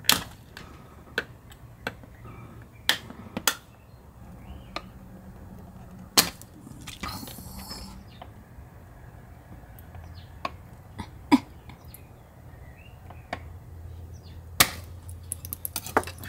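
A metal putty knife prying at the plastic covers around Garmin instrument displays makes irregular sharp clicks and taps, with a short scrape about seven seconds in and a quick run of clicks near the end.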